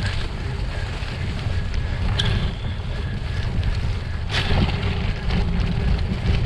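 Wind buffeting the microphone over the steady rumble of a gravel bike riding a rough unmaintained road, with two sharp knocks, about two seconds in and again after four seconds.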